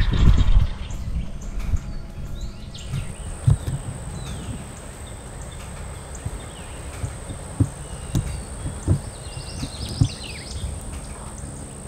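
Outdoor woodland ambience: scattered short songbird chirps and a steady high insect-like whine, with a few soft low thumps and a brief low rumble at the start.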